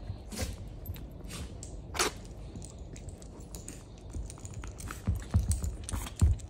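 Two small dogs, a Yorkshire terrier and a toy poodle, play-wrestling on a leather-look sofa: paws and bodies scuffling and scratching on the cushions, with a run of soft thumps near the end.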